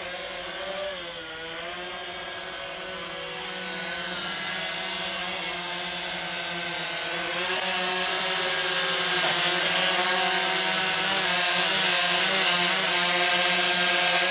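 Small quadcopter drone's propellers whining in flight, several pitches wavering up and down as it manoeuvres. It grows steadily louder as it comes in close.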